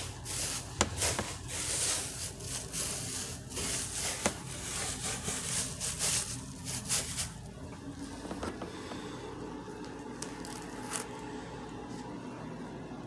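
Cedar wood chips being spread and stirred by hand over a puppy pad, a dry rustling and crackling with scraping. It is busy for the first seven seconds or so, then dies down.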